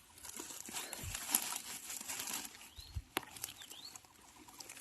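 Rustling and crackling of leaves and bamboo stems being pushed aside and handled in bamboo undergrowth, with two sharp cracks, one about a second in and one about three seconds in.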